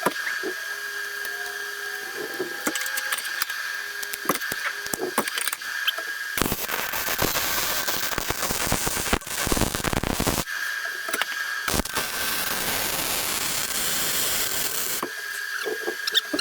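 Arc welding on the steel subframe connector pieces: a dense, steady crackle in two long runs, starting about six seconds in with a short break near the middle. Under it is a steady high whine, with scattered clicks before the welding starts.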